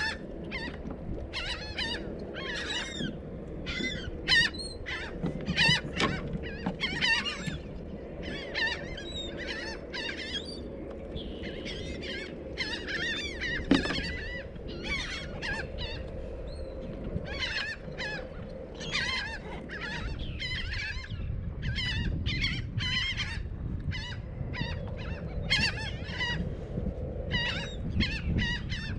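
A flock of seabirds calling over the water, many short calls overlapping, several a second, as the birds work over jumping shrimp. A low rumble runs beneath the calls.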